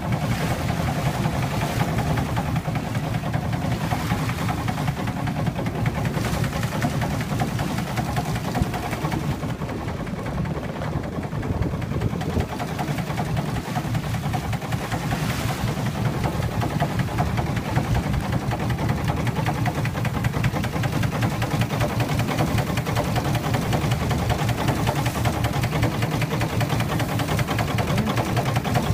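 Boat engine running steadily, with a fast, even low beat.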